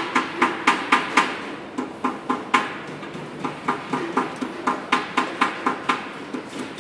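Hammer striking sheet metal repeatedly, about three blows a second at an uneven pace, each blow ringing briefly.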